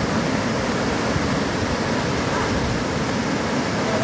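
Floodwater rushing over a submerged causeway: a steady, loud, unbroken churning of fast white water.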